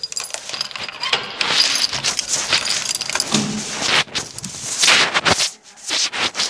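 Loud, irregular rustling and rattling close to the microphone as the recording phone or camera is handled and swung about, with a jangle like keys.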